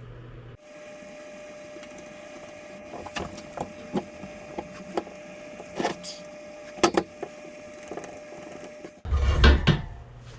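Scattered light clicks and taps of hands working on a spoked dirt-bike wheel's rim and tire, a few sharper knocks among them. A heavier thump with rustling comes near the end.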